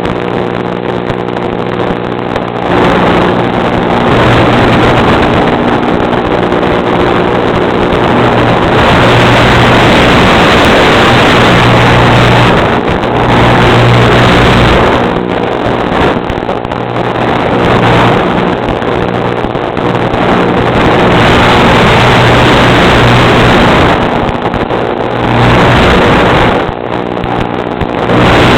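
A motor running steadily with a humming pitch, repeatedly drowned by surges of wind rushing over the microphone, each lasting a few seconds.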